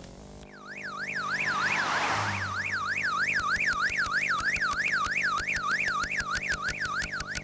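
Electronic alarm tone sweeping up and down about three times a second, like a car alarm or yelp siren, over a steady low drone. A burst of hiss swells about two seconds in, and a rapid regular ticking runs through the second half.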